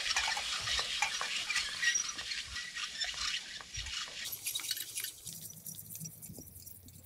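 Black plastic mulch film crackling and crinkling as a hand-pulled mulch layer unrolls it over a soil ridge, the crackle thinning out after about four seconds as it moves away.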